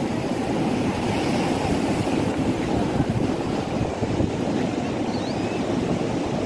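Steady wind buffeting the microphone over the low rush of surf on a beach.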